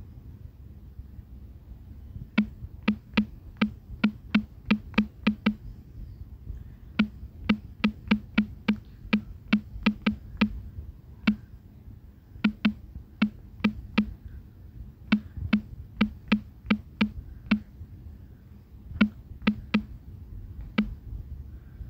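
Key-press clicks of an Android phone's on-screen keyboard as text is typed: quick runs of short clicks, several a second, broken by brief pauses between words, over a faint low hum.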